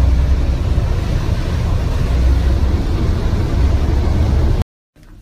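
Steady low rumble and noise of a bus running, heard from inside its passenger cabin. The sound cuts off abruptly near the end.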